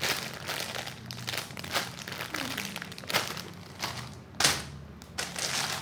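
Plastic packaging crinkling as a bagged squishy toy is handled and squeezed, in irregular crackles, the loudest about four and a half seconds in.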